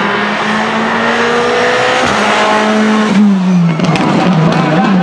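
Renault Clio N5 rally car engine running hard, its note climbing slowly with a short break about two seconds in, then dropping and wavering up and down past three seconds as the revs come off and are blipped.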